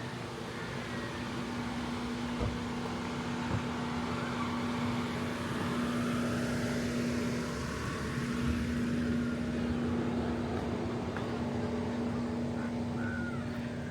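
Steady rushing of water from the creek and falls, with a constant low hum running under it and a few faint knocks.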